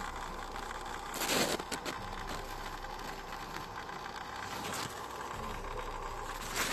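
Cascade 1500 canister filter running with a steady hum and a few irregular clicks, which the owner suspects come from a snail or something lodged in the impeller.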